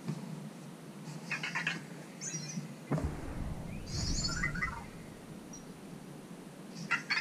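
Anki Vector robot waking up for the first time, giving short chirping, warbling electronic beeps in several clusters. A low rumble comes in about three seconds in and runs for under two seconds.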